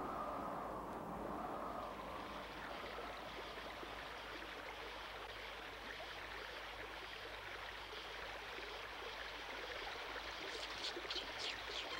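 A stream and waterfall running: an even, steady hiss of flowing water. Near the end a few short, bright high sounds come in.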